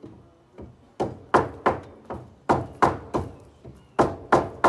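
Hammer blows struck in quick succession at the ambulance's cut roof line, about three sharp strikes a second, starting about a second in, each ringing briefly.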